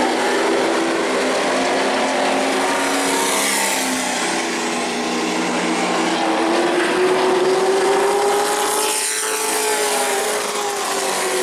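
Short-track race trucks' engines running hard at racing speed. About six seconds in, the engine note climbs as the leading truck accelerates onto the straight. Near nine seconds it passes close by and the pitch drops.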